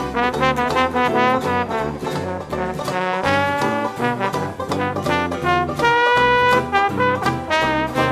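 Background jazz music with a brass lead, over a stepping bass line.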